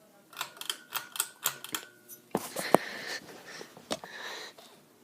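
Metal pull chain of a ceiling fan's speed switch being pulled to change the fan to high: a quick string of light rattling clicks, then a louder cluster with one sharp click about two and a half seconds in, followed by softer chain rattle.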